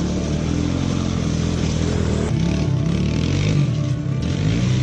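Three-wheeled ATV engine running and changing pitch as it is ridden across gravel, with background music over it.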